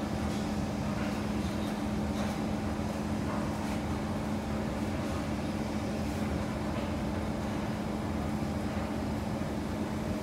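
Kawasaki C151 electric multiple unit heard from inside the train: steady running noise with a constant hum that stays at one pitch.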